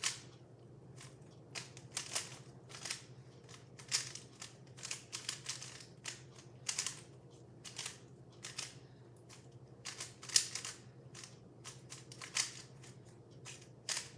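Plastic speed cube being turned quickly by hand during a solve: irregular runs of sharp clacks and rattles as the layers snap round, with short pauses between runs.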